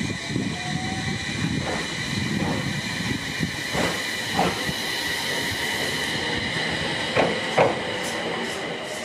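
Abukuma Express AB900 series electric train pulling out and picking up speed, its motors giving a steady high whine over a low rumble. The wheels clack over rail joints in two pairs, about four and seven seconds in.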